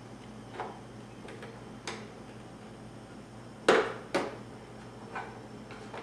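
Sharp plastic clicks and snaps from a scooter's plastic handlebar cover as it is pried loose at its locking tabs: a few scattered clicks, the two loudest close together a little past the middle.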